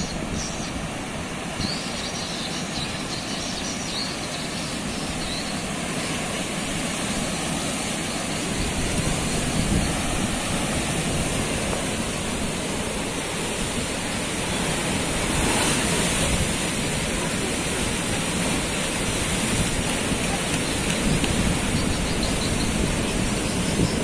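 Bono tidal bore surging onto the bank: a steady rush of churning, breaking water that swells louder and deeper about eight seconds in.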